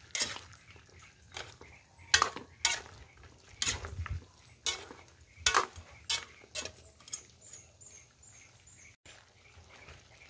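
Metal spatula scraping and clinking against a steel wok while a thick stew with freshly added potatoes is stirred: about nine sharp strokes over the first seven seconds, then quieter.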